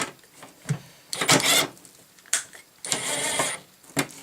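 Cheap cordless impact driver running in two short bursts of about half a second each, driving a screw into a plastic port, with a few sharp clicks and knocks between.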